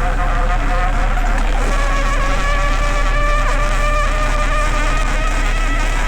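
Crab boat's machinery running steadily: a constant low hum under a whine whose pitch drifts slightly.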